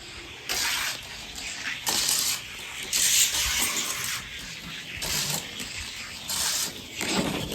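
Die-cast toy car rolling down a long plastic gravity race track, its wheels making a rushing hiss that swells and fades in several surges along the run.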